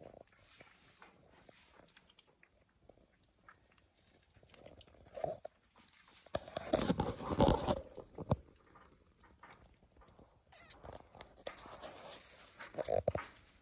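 Asian water monitors feeding on raw chicken organs: irregular chewing, snapping and knocking, with a louder stretch of scuffling and knocks a little past halfway and another short burst near the end.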